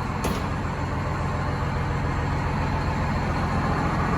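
GM 4104 bus's Detroit Diesel 6-71 two-stroke diesel idling steadily, just brought back to running after a long rebuild. A short click sounds about a quarter second in.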